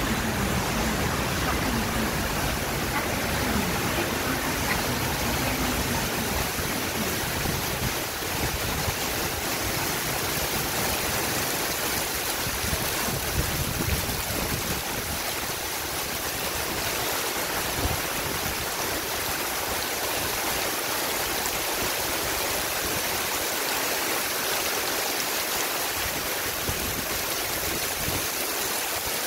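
Heavy tropical rain pouring onto an elevated railway station and its tracks: a steady, dense hiss. A low rumble underneath fades out about halfway through.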